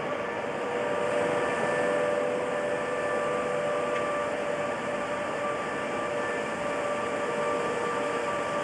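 British Rail Class 87 electric locomotive moving slowly with its train, giving a steady electrical hum of several held tones over a constant running noise, a little louder from about a second in.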